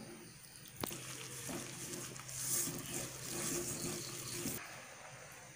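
A hand mixing a thick cornflour batter in a steel bowl, with wet squishing sounds and a sharp tap against the bowl about a second in.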